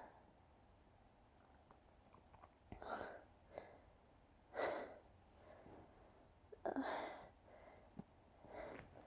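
A person sneezing and gasping for breath from hay fever: four short breathy bursts about two seconds apart.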